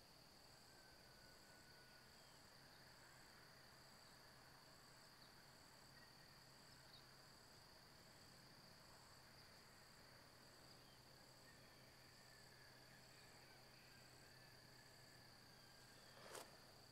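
Near silence with a faint steady high insect drone and a softer chirp repeating about every second and a half. One sharp click near the end.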